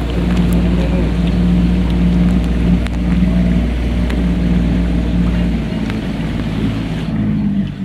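A small boat's motor running steadily under way, with rushing water and wind noise; the low rumble drops away about six seconds in.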